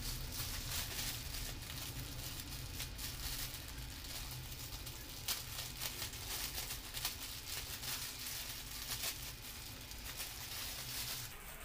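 Thin clear plastic bag crinkling and rustling as it is handled, a dense run of irregular crackles.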